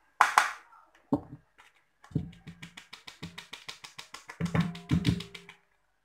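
Plastic sieve of flour being shaken and knocked against a metal mixing bowl to sift it: two single knocks, then a run of quick, even knocks, about eight a second, lasting several seconds.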